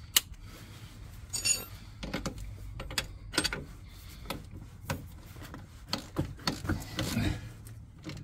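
Spanners working the bolt at the base of a van's front shock absorber: irregular metallic clicks and clinks as the bolt is nipped up, coming more often from about two seconds in.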